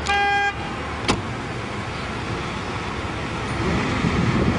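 A single short car horn beep lasting about half a second, then a sharp click about a second in, over steady low street rumble.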